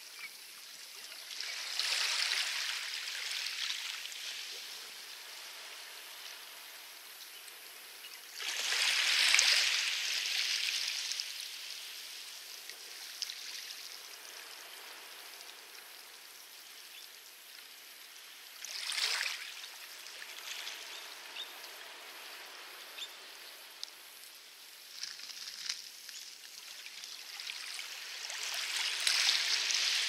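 Small waves washing in on a pebble beach: a hissing rush of water rises and falls back about five times at uneven intervals, strongest about nine seconds in, with a few faint clicks in the quieter gaps.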